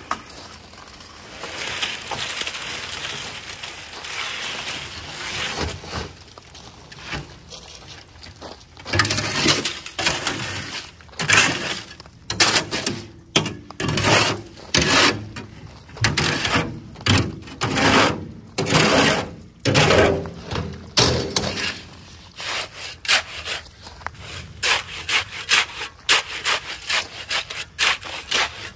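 Wet concrete sliding out of a tipped wheelbarrow into a post hole, then a shovel scraping the last of the concrete from the wheelbarrow tub in repeated strokes. Near the end come short, quick jabs of the shovel into the wet concrete, working out the air bubbles.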